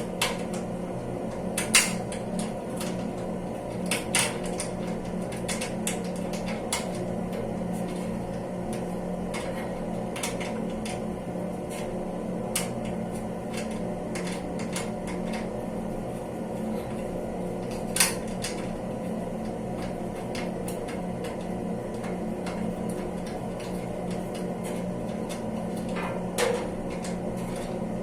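Scattered light clicks and knocks of parts being handled, the loudest a little under 2 s in and near 18 s, over a steady low hum.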